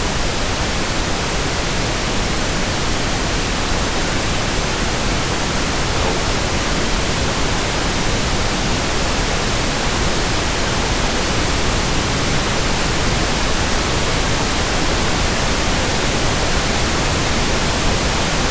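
Steady, loud static-like hiss spread evenly from low to high pitches, with no change in level or character.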